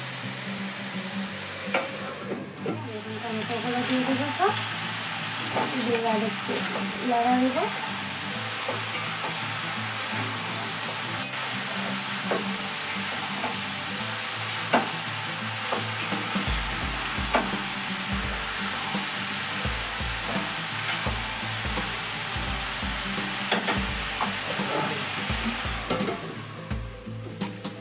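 Mixed vegetables for labra sizzling in an aluminium kadai on a gas burner, stirred with a metal spatula that clinks and scrapes against the pan. Near the end the lid goes on and the sizzle drops away.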